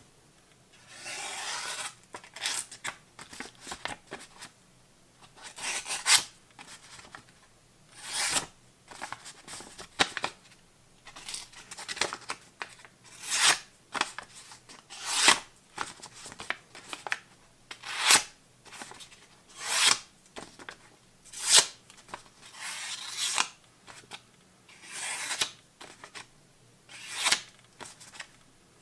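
A small fixed-blade knife with a D2 steel blade slicing through a sheet of paper in a sharpness test: about fifteen short slicing strokes, roughly one every two seconds, with paper rustling between them. The edge cuts cleanly, now and then catching slightly in the paper.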